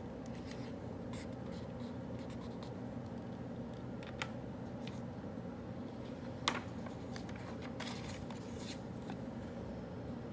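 Pen writing on paper: short scratching strokes and light taps, with two sharper clicks, one about four seconds in and one about six and a half seconds in. Under it runs the steady hum of a quiet study room.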